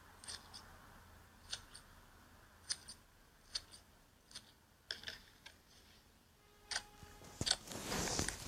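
Sharp, crisp clicks and crackles from slime being handled in an ASMR slime video, spaced about once a second, then a louder, denser crackling run near the end.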